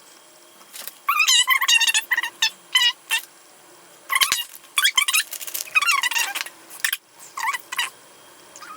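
An animal calling: a series of short, high-pitched cries that rise and fall in pitch. They come in several quick runs.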